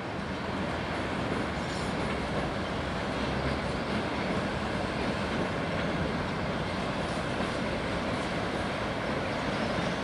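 A freight train of covered hopper wagons hauled by a red electric locomotive rolling past, with a steady rumble of wheels on rail.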